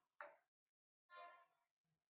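Faint steel ladle sounds against the metal pan: a short sharp tap, then about a second in a brief metallic ring that fades within half a second, as the ladle is knocked on the pan after stirring.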